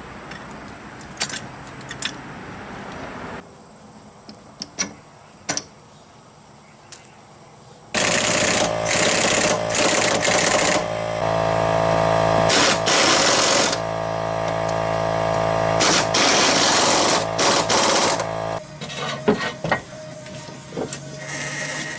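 Power impact wrench hammering in several long bursts on the suspension bolts, with a steady buzzing pitch. Before it come scattered clicks and knocks of tools being handled.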